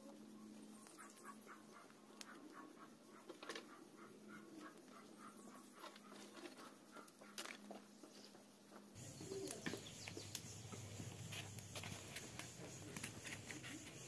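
Faint wood fire crackling in a brick wood stove, with a few sharp pops. A bird calls in the background in a quick run of short notes during the first few seconds. A louder low background noise comes in about nine seconds in.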